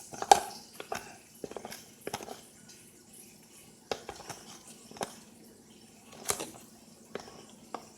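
A spoon scraping and tapping against a mixing bowl, irregularly, while stirring glue and paint into slime.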